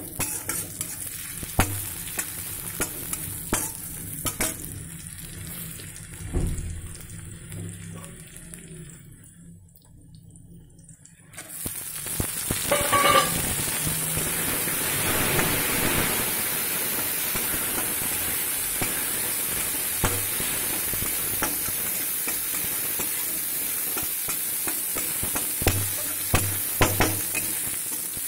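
Sliced onion, carrot and peas stir-frying in a wok, a metal spatula scraping and clicking against the pan. About eleven seconds in, a loud, steady sizzle starts suddenly and carries on under the spatula strokes.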